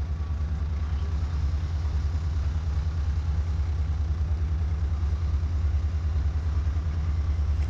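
Diesel locomotive engine rumbling as it approaches, a deep, evenly pulsing throb that slowly grows louder.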